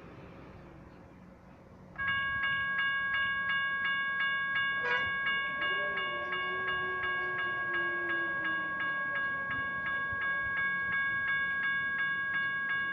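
General Signals Type 1 electronic crossing bell starts ringing about two seconds in, a rapid, even ding of about four strikes a second, signalling an approaching train. About five seconds in there is a sharp click, followed by a low hum that slowly falls in pitch, typical of the US&S Model 95 gate mechanism lowering the gate arm. Light traffic noise is heard before the bell starts.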